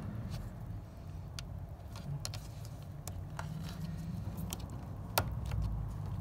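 Small plastic clicks and scrapes as fingers work a plastic retaining clip onto the fuel line connector of a car's fuel pump assembly, with one sharper click about five seconds in. A low steady rumble runs underneath.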